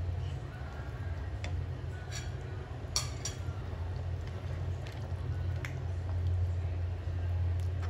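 Thick curry being stirred in a non-stick pan with a ladle: wet squishing with light knocks of the ladle against the pan, the sharpest a pair about three seconds in, over a steady low hum.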